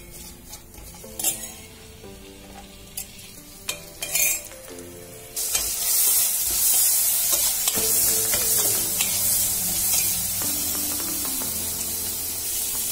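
Sliced onions and green chillies frying in oil in a stainless steel pan, stirred with a metal slotted spoon that clinks against the pan a few times in the first half. About five seconds in, a loud, steady sizzle starts and keeps going.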